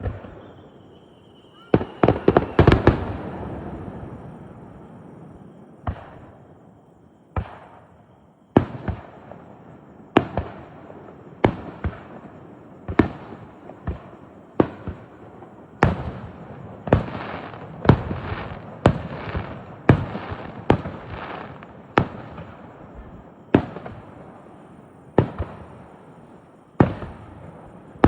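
Aerial fireworks shells bursting: a quick cluster of loud bangs about two seconds in, then single booms about every second or so, each trailing off in a rumbling, crackling decay.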